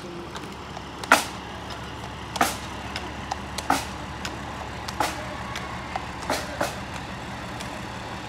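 Pipe band drum taps keeping a slow marching beat, one sharp tap about every 1.3 seconds. Under them is the steady low rumble of idling tractor engines.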